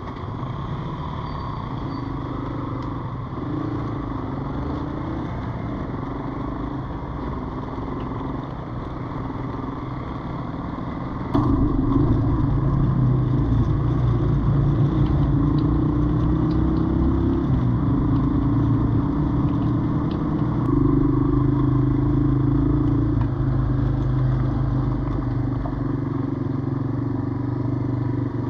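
Yamaha Serow 225's single-cylinder four-stroke engine running at low revs, then louder from about a third of the way in as the bike is ridden, its pitch rising and falling with the throttle.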